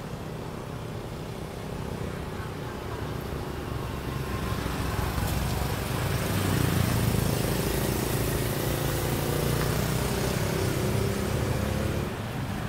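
A motor vehicle's engine running, growing louder over the first several seconds, holding steady, then dropping near the end.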